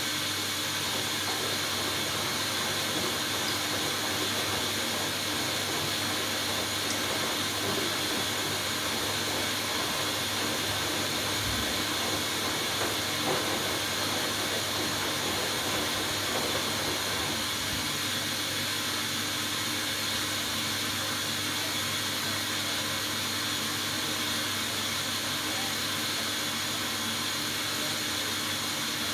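Hoover Dynamic Next washing machine in its final rinse, giving a steady hiss of water.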